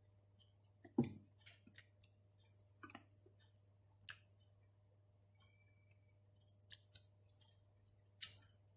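Small scattered clicks and knocks of pizza being eaten: mouth sounds and crust noises as a pepperoni slice is handled, bitten and chewed. The loudest knocks come about a second in and again near the end, over a steady low hum.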